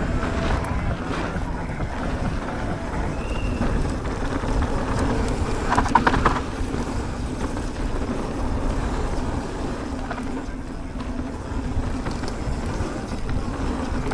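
Wind rushing over the camera microphone and the rolling rumble of a Commencal Meta SX mountain bike's tyres and frame on a dirt downhill trail, steady throughout, with a brief louder burst about six seconds in.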